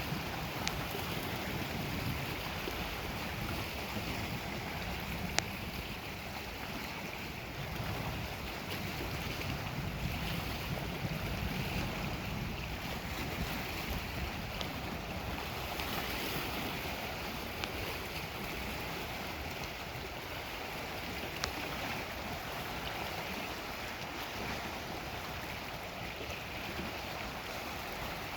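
Steady wash of Lake Superior waves on the shore, with wind buffeting the microphone. A few faint sharp clicks are scattered through it.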